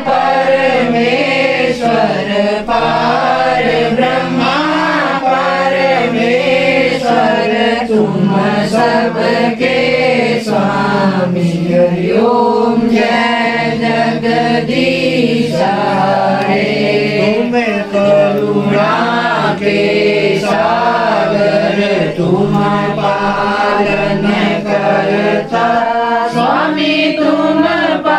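A group of voices singing a devotional aarti together in a slow, chant-like melody, with a steady low tone held underneath.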